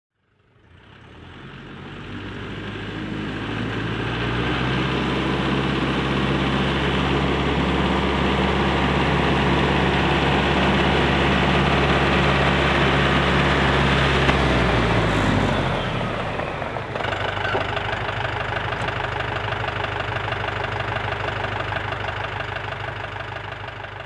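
Mahindra 4550 tractor's diesel engine running under load as it carries a heavy log on its front-loader forks, growing louder over the first few seconds. About two-thirds of the way through the engine note drops, then runs on lower and steadier.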